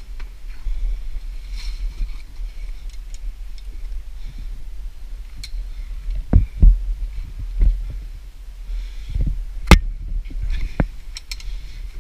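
Steady low rumble with scattered sharp knocks and clicks, the loudest coming about six and a half and nearly ten seconds in.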